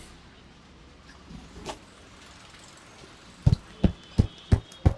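Hands striking a person's body in a percussive massage: a quiet stretch with a couple of soft taps, then from about three and a half seconds in a steady run of deep, loud thumps, about three a second.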